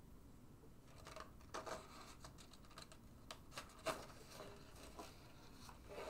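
Paper rustling and light clicks of a picture book's page being handled and turned, starting about a second in.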